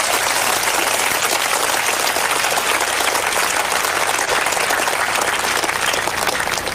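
Large crowd applauding with dense, steady clapping that begins to die down near the end.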